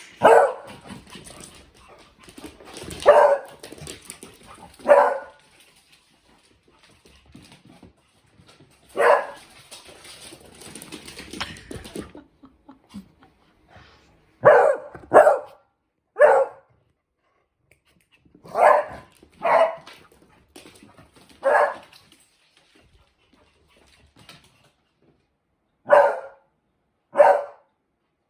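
Pet dogs barking: about a dozen single barks at irregular gaps. For the first twelve seconds there is also a rustling noise under the barks.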